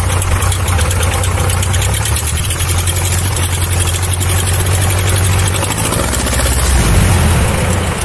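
An Aeronca Champ's engine and propeller running at low power as the plane taxis: a steady low drone. Near the end the note shifts and grows a little louder.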